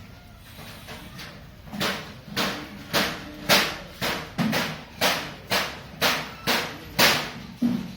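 A series of sharp strikes or cracks, about two a second, starting about two seconds in and keeping a steady rhythm.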